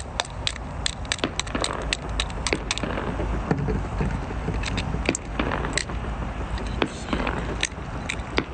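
Whole cooked brown crab being pried and broken apart by hand: an irregular run of sharp cracks and clicks as the shell breaks, over a steady low rumble.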